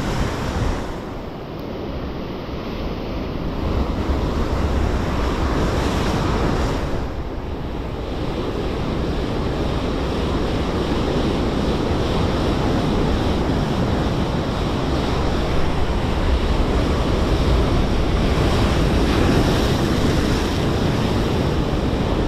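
Ocean surf breaking and washing on the shore, swelling and easing, with wind buffeting the microphone.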